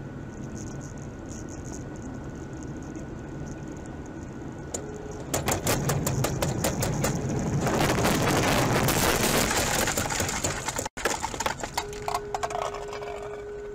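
Road noise inside a car, then about five seconds in a box truck sideswipes it: a rapid run of crunching, scraping knocks followed by a few seconds of loud scraping as the truck's body grinds along the car. It breaks off suddenly, and quieter road noise with a steady hum follows.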